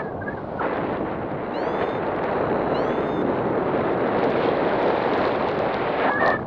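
Wind rushing over the microphone of a paraglider pilot's camera in flight: a steady dense rush of air noise. Two brief faint whistling tones come around two and three seconds in, and the wind rises briefly near the end.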